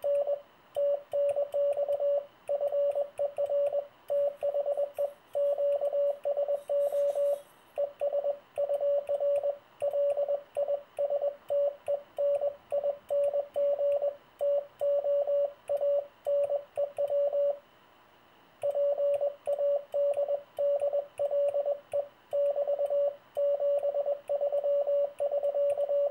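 Morse code (CW) sent with a single-lever paddle through an electronic keyer at 20 words a minute, heard as the transceiver's sidetone: a single steady beep keyed on and off in quick, evenly timed dits and dahs. The sending pauses for about a second roughly two-thirds of the way through, and faint clicking from the paddle can be heard throughout.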